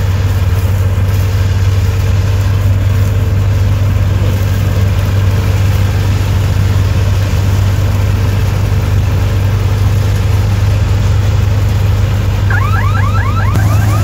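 Combine harvester running steadily under load as it cuts wheat, with a loud, even engine drone and a strong low hum. Near the end a fast series of rising chirps, about four a second, joins in.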